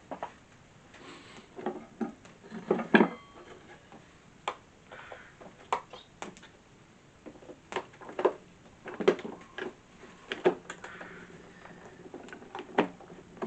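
Irregular knocks and clicks of wood and metal being handled, a dozen or so spread out, with the loudest pair about three seconds in.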